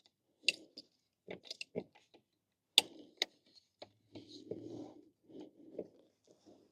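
Hand tools and scooter parts being handled, giving irregular clicks and taps, a few of them sharp, with short bouts of rustling and scraping.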